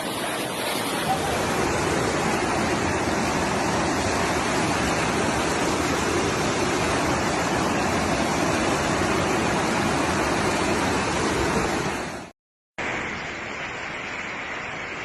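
Floodwater rushing in a steady, loud wash of noise. It cuts off for a moment about twelve seconds in and comes back quieter.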